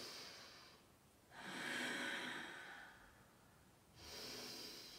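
A woman's slow, audible breaths. One fades out at the start, a second runs from about one and a half to three seconds in, and a third begins about four seconds in.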